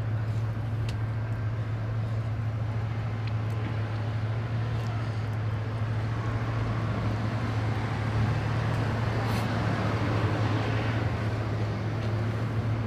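A steady low mechanical hum under a constant rushing noise, with a few faint clicks.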